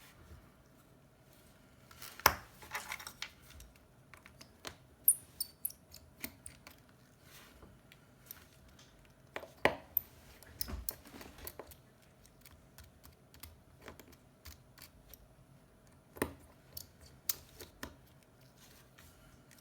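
Small hand tools and phone parts being handled during an iPhone repair: irregular light clicks, taps and brief scrapes, the sharpest click about two seconds in.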